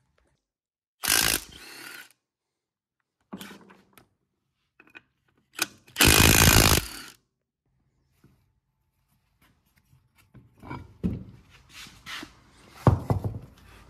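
Impact wrench run in short bursts, the longest about a second, spinning off the wheel nuts of an ATV's rear wheel. After it come light metallic clanks and knocks of nuts and tools being handled.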